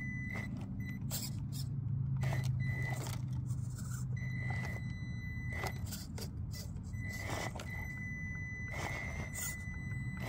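Traxxas TRX-4M 1/18 mini crawler's motor and freshly installed Injora gears whining in on-and-off spurts as it crawls over rocks, over a low hum. Short clicks and scrapes of the tyres and chassis on rock come throughout.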